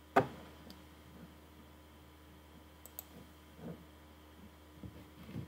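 Clicks from working at a computer: one sharp click just after the start, then a couple of faint clicks around the middle, over a quiet room background.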